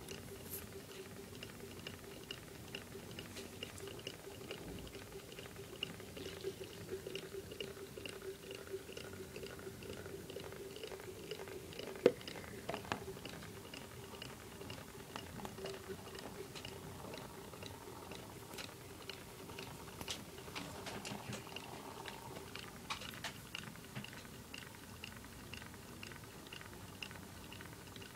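Astromedia cardboard LTD Stirling engine running, its rhythmic knock coming about twice a second (about 120 rpm). Faint crackles and bubbling come from the water boiling in the heater beneath it. One sharp click stands out about twelve seconds in.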